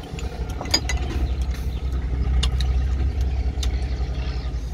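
A fishing boat's engine running steadily with a low throbbing hum, with a few light clicks of chopsticks against a ceramic rice bowl.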